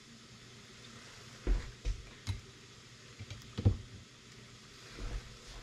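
Glass canning jars knocking against the pot and each other as they are set into hot water with a metal jar lifter. There are several separate knocks, the loudest a little over halfway through, over a faint steady hiss from the steaming pot.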